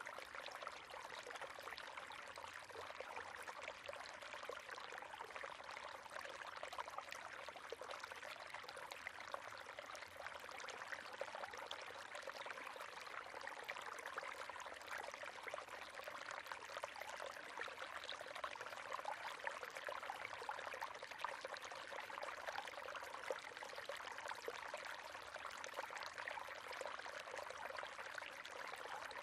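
River water flowing steadily, with a continuous rush and fine splashing and bubbling.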